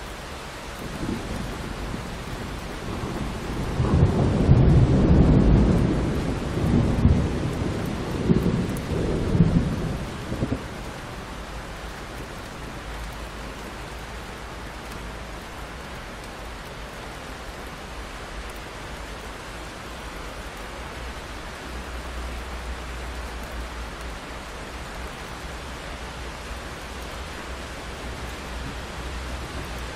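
Steady rain with a long roll of thunder: the rumble builds in the first few seconds, is loudest about four to six seconds in, rolls on in several more peals and dies away about a third of the way through, leaving the rain alone.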